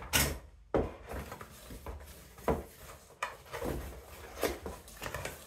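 A cardboard box being handled and lifted out of molded pulp packing inserts: a series of sharp knocks and bumps with scraping and rustling of cardboard in between.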